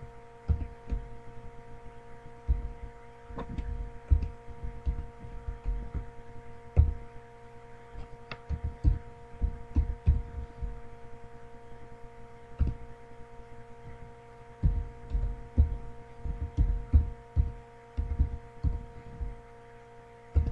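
Typing on a computer keyboard, heard as irregular bursts of dull low thumps with a few sharper clicks, over a steady electrical hum of several fixed tones.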